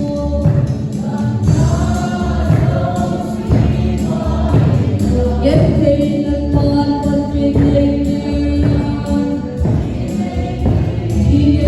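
Gospel-style song with a choir singing over instrumental accompaniment.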